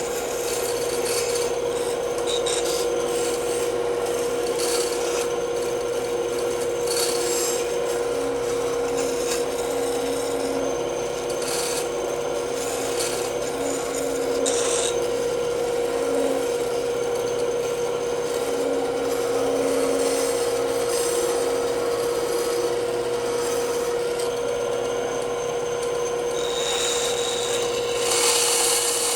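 Band saw running with a steady hum while its blade cuts through wood, the cutting noise varying as the piece is fed and turned, and brightening near the end.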